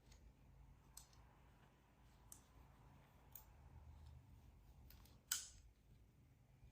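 Faint, scattered clicks of a crochet hook and a metal clasp frame knocking together while single crochet stitches are worked onto the frame, with one louder click about five seconds in.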